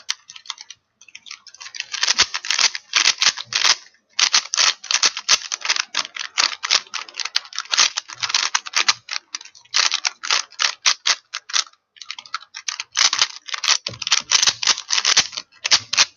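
Rubik's Cube being turned rapidly by hand in a speed-solve: fast runs of plastic clicking as the layers snap round, broken by short pauses of a second or less.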